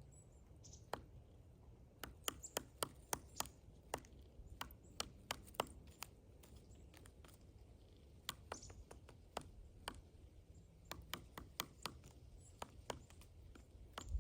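Pileated woodpecker chiselling into a pine trunk: sharp single knocks at an irregular pace, about two or three a second in a run starting about two seconds in, then sparser.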